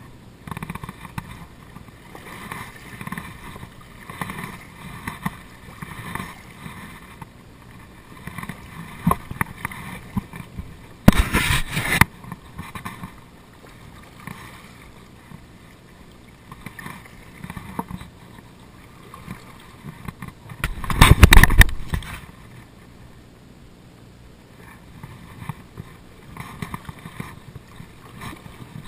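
Water lapping and gurgling against a kayak's hull in soft, regular pulses about once a second, with two louder bursts of noise about eleven and twenty-one seconds in.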